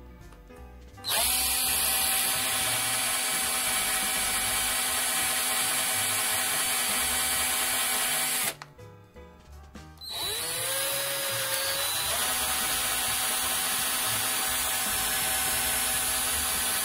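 Electric drill with a twist bit boring into a small wooden lure body held in the hand. The motor runs with a steady whine for about seven seconds, stops, then spins up again with a rising pitch and runs on until the very end.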